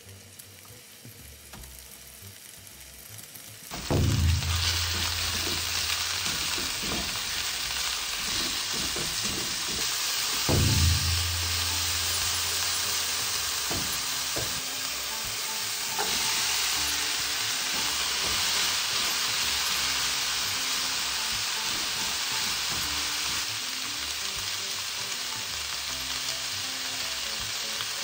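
Minced chicken frying in olive oil in a non-stick pan, being stirred and broken up as it browns. The pan is faint at first, and the sizzling starts loud and steady about four seconds in.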